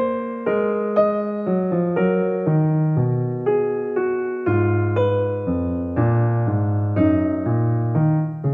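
Background piano music: a gentle melody of pitched notes, each struck and fading, changing about twice a second over low sustained bass notes.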